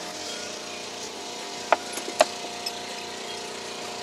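Sharp clicks from the accessory drive belt being worked onto its pulleys, with the tensioner levered back, on the Touareg's 3.0 TDI engine: two clicks about half a second apart near the middle and a lighter one after. A steady hum runs underneath.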